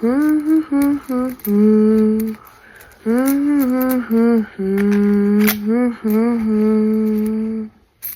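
A person humming a tune, holding notes and sliding from one pitch to the next with short breaks, along with a few light clicks.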